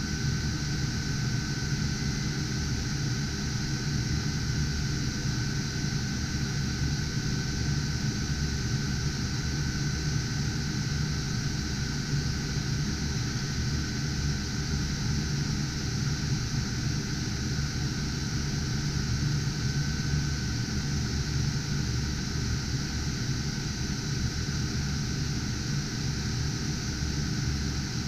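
Steady whoosh of many computer cooling fans from GPU mining rigs, unchanging throughout, with a thin steady high tone over it.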